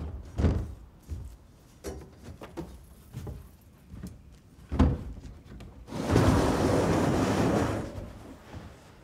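A 275-gallon plastic IBC tote being pushed out of its steel cage: a few separate knocks as the tank bumps the cage, then a scraping slide lasting about two seconds as the tank comes free.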